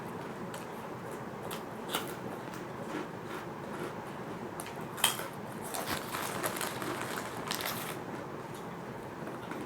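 Fish crackers being bitten and chewed, crisp crunching with scattered sharp cracks: one loud crack about five seconds in, then a few seconds of denser crunching.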